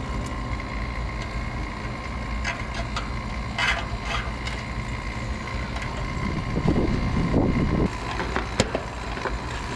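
Refrigeration vacuum pump running steadily while it evacuates a new air conditioning condenser system, with scattered clicks and rustling from parts being handled.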